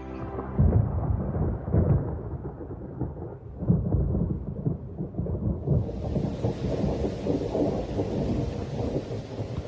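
Thunder rumbling in several low surges, then rain setting in about six seconds in as a steady hiss over the rumble.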